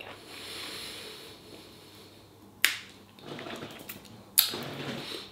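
Eating noises from a man at the table: soft breathy mouth sounds, then two sharp clicks about two seconds apart.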